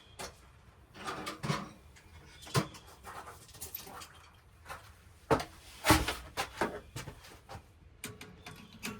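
Hand tools and hardware being handled: irregular clicks and knocks, the two loudest a little past halfway.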